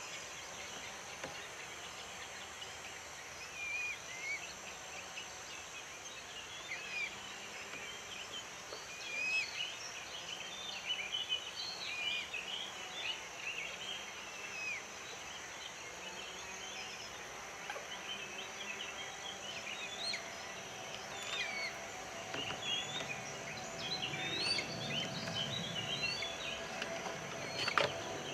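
Many short chirping bird calls come and go over a steady high-pitched insect drone. A low rumble swells in the last few seconds, and there is one sharp click near the end.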